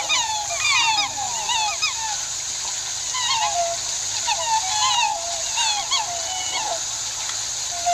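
Black swans calling: many short, squeaky notes that bend in pitch, overlapping in irregular clusters, over a steady high hiss.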